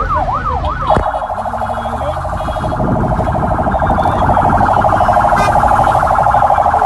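Electronic vehicle siren wailing, about two rises and falls a second. About a second in it switches with a click to a fast warble that grows louder.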